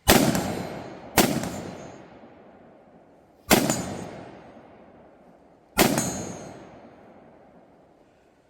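Four gunshots, irregularly spaced, the first two about a second apart and the others a couple of seconds apart. Each is followed by a long echo that fades away over about two seconds.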